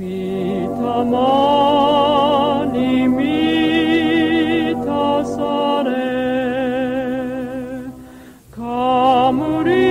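A Japanese hymn sung slowly, with wide vibrato on long held notes over a low sustained accompaniment. About eight seconds in the singing breaks off briefly, then the next phrase begins.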